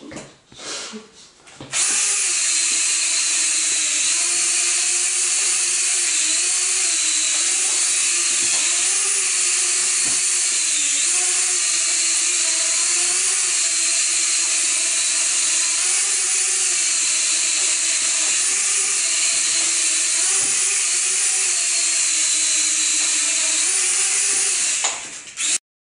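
Eachine H8C mini quadcopter's small brushed motors and propellers whining steadily as it hovers, the pitch wavering up and down with throttle corrections. The motors spin up about two seconds in and cut off near the end.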